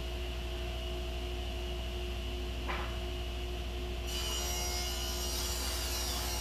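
Table saw running steadily, then from about four seconds in its blade rips a bevel along a wooden slat, a harsh cutting noise over the motor hum. A light knock comes just under three seconds in.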